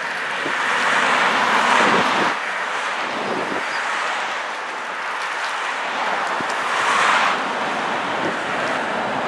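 Rushing wind on the microphone mixed with road traffic noise, swelling about a second and a half in and again about seven seconds in, as vehicles pass.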